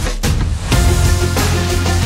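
Background music with a strong, steady bass line.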